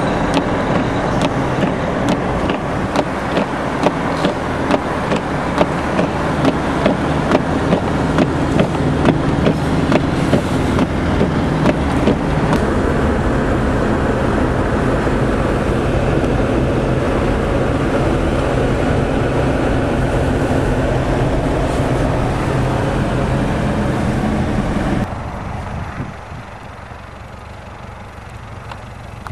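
A motor vehicle's engine running steadily, with sharp regular clicks about two or three times a second through the first ten seconds or so. About 25 seconds in the sound drops abruptly to a quieter steady hum.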